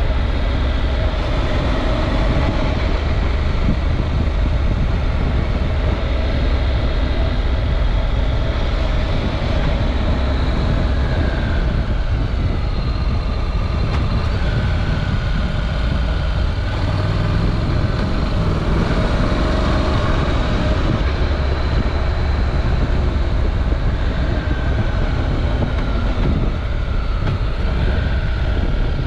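Honda NC700X motorcycle's parallel-twin engine running at road speed, picked up by a bike-mounted action camera along with heavy wind rumble on the microphone. The engine note rises and falls a little a few times.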